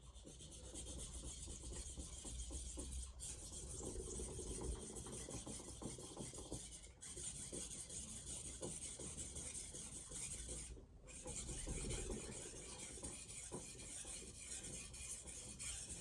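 VG10 stainless steel santoku blade being stroked steadily across a Shapton Glass whetstone: a continuous grinding scrape, broken by three brief pauses about every four seconds.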